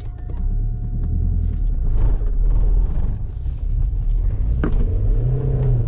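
Opel Astra G's 1.6-litre 16-valve four-cylinder petrol engine working hard under load, heard from inside the cabin as the car climbs a sandy track while short of power. There is a steady low drone with rattling, and a sharp knock near the end.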